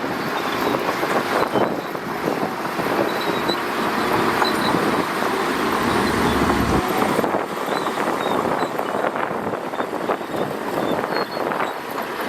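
Shantui DH17C2 crawler bulldozer running and working, a steady, dense machine noise.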